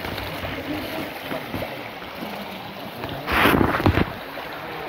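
Steady rush of a shallow forest stream, broken about three seconds in by a loud burst of wind noise on the microphone lasting under a second.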